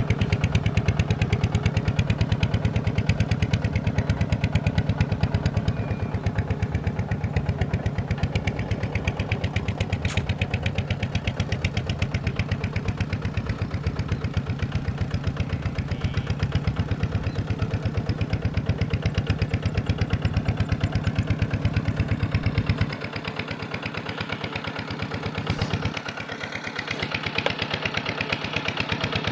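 Small diesel engine running steadily with a rapid, even beat. About two-thirds of the way through it drops lower and quieter, then picks up again near the end.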